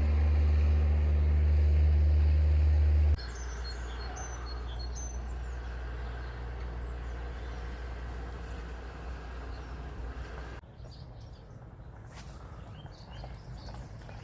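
A loud, steady low hum for about three seconds cuts off abruptly. It gives way to steady outdoor background noise with small birds chirping now and then, which turns quieter near the end.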